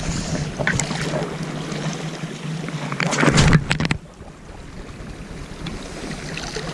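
Wind blowing across the microphone over water washing against a rocky shore, with a louder rush about three to four seconds in that then drops away.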